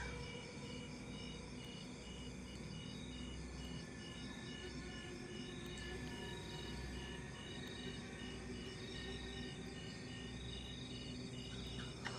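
Crickets chirping at night: one calls in a steady, regular pulse of short high chirps over a bed of other steady insect trills, with a faint low rumble underneath.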